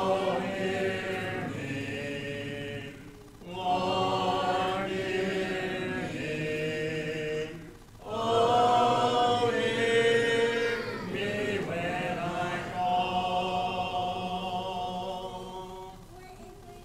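Church congregation singing a hymn a cappella, in three long held phrases with short breaths between; the final note is held and fades out near the end.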